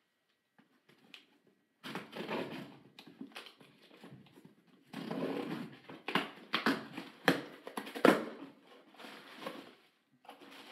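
Plastic packaging being handled and opened: rustling and crinkling in irregular bursts, with a few sharp crackles in the second half.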